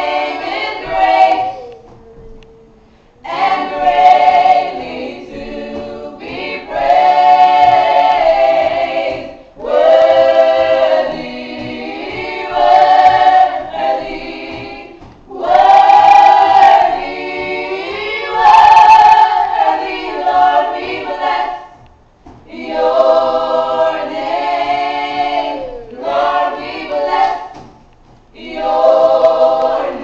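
Small group of women singing a gospel song together, in phrases of a few seconds with short breaks between them.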